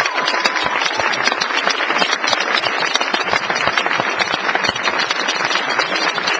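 Audience applauding: dense, steady clapping from a large crowd, with a brief whistle or shout fading out just at the start.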